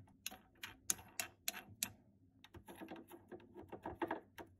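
White plastic mounting nut being spun by hand up the threaded metal shank of a faucet to clamp the faucet body against its rubber washer: a run of light, sharp clicks, about three a second, then a denser patch of quick clicks and rattling near the end.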